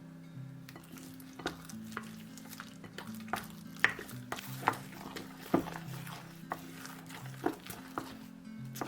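A kitchen utensil stirring and knocking against a bowl, in irregular sharp clicks, over soft acoustic guitar music.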